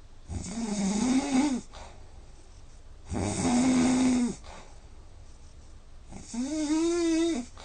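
A sleeping man snoring loudly: three long, droning snores about three seconds apart, with quieter breathing in between.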